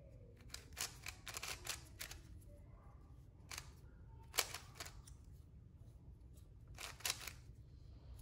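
Faint plastic clicks from a QiYi 3x3 speed cube, bandaged with superglue, as its layers are turned by hand. The clicks come in short, irregular clusters of a few turns.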